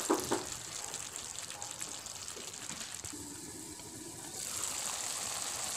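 Vegetables and chicken in a wok sizzling and simmering with a little added water, a steady hiss, with a couple of light knocks at the start and a softer stretch about three seconds in.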